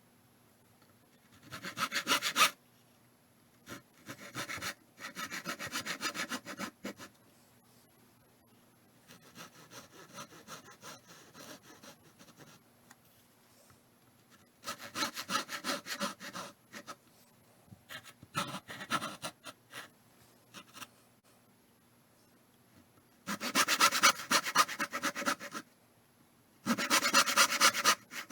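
Handsaw cutting wood in about seven short bouts of quick back-and-forth strokes, with brief pauses between bouts. These are the saw cuts for the fingers of a hand-cut box joint.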